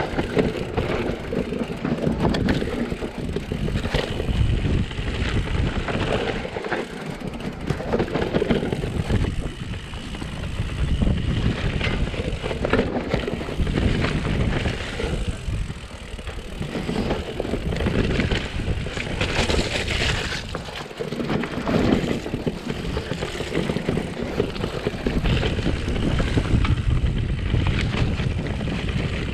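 Mountain bike riding down a downhill dirt trail: continuous tyre noise, with the bike rattling and knocking over bumps.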